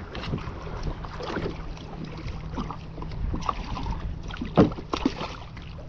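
Wind buffeting the microphone and sea water slapping against a kayak hull, with scattered light knocks of gear and one sharp hit about four and a half seconds in.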